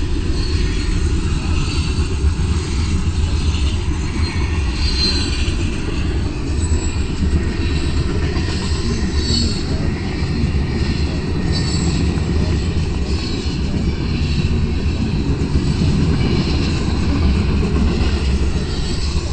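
Freight train of boxcars and double-stacked container cars rolling past. It makes a steady low rumble, and high-pitched wheel noise comes and goes over it. Heard from inside a moving car.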